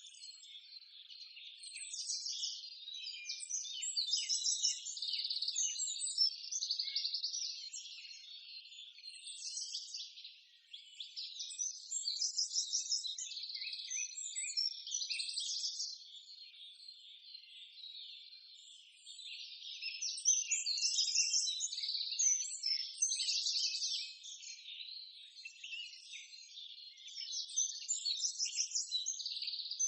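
Many birds chirping and trilling together in a dense, continuous chorus of high calls that swells and fades in waves, loudest around the middle and near the end.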